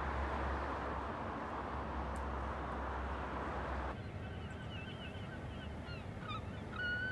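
Steady rushing noise with a low rumble that cuts off abruptly about four seconds in. Then birds call in a run of short, repeated cries that grow louder near the end.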